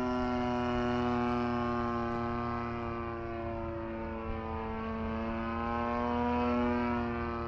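Hangar 9 Ultra Stick RC airplane's motor and propeller droning in flight, one steady pitched note whose pitch sags a little mid-way and climbs back, growing louder about a second in and again near the end as the plane passes.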